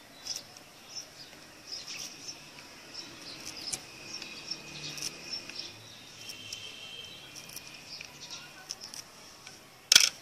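Small birds chirping in the background, with faint light clicks of a knife paring lemon rind by hand. A single sharp knock just before the end is the loudest sound.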